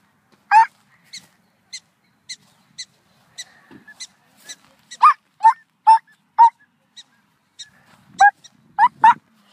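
Prairie dogs giving short, sharp barking calls over and over, about two a second, some loud and close and others fainter from further off, the repeated calling typical of a colony sounding the alarm at people walking among their burrows.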